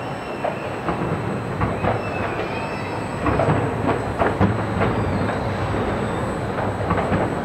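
A train running with its wheels squealing in high drawn-out tones over a steady rumble, with scattered sharp pops from distant fireworks.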